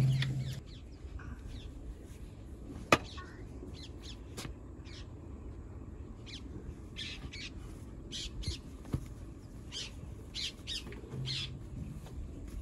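Short bird calls and chirps, most of them in the second half, over the scraping of a hand hoe digging into damp sand. A single sharp knock comes about three seconds in.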